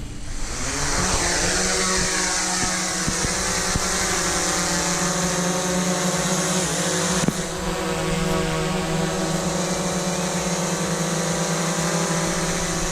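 Small DJI quadcopter drone's brushless motors and propellers spinning up, the whine rising in pitch over the first second or two, then running steady with a high-pitched whine and the rush of air. There is a brief dip in pitch about seven seconds in.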